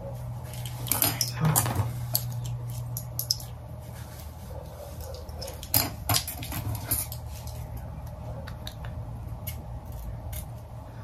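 Scattered light clicks and rustles of hands pressing and smoothing a glued lace-front wig at the hairline, over a low steady hum. The sharpest clicks come about a second in and near the middle.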